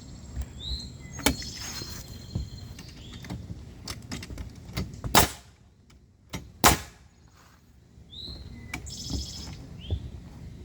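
Two loud, sharp bangs about a second and a half apart in the middle, among lighter knocks and clicks from the building work. A bird chirps a few times.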